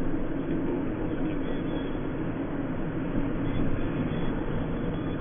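Car driving, heard from inside the cabin: a steady, even rumble of engine and tyre noise.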